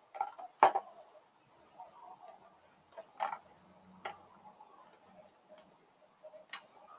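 A handful of sharp, isolated clicks from operating a computer, spaced unevenly over several seconds, the loudest about half a second in, over faint room tone.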